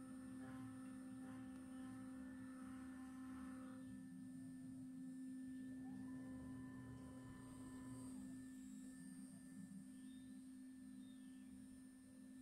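2.2 kW ER20 CNC router spindle running at speed while milling aluminium, heard faintly as a steady single-pitched whine. Near the end, two faint higher whines rise and fall in pitch.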